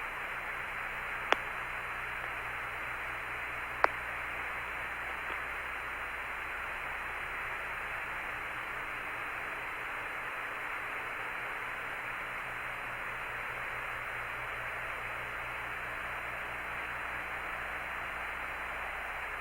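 Apollo 17 lunar module's air-to-ground radio link hissing with steady static while the signal has dropped out (lost lock), with two sharp clicks in the first four seconds.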